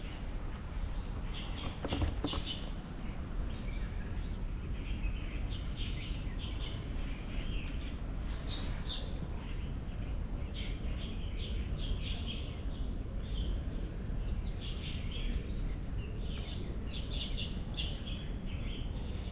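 Small birds chirping and twittering over and over, many short high calls overlapping, above a steady low rumble. A brief knock about two seconds in.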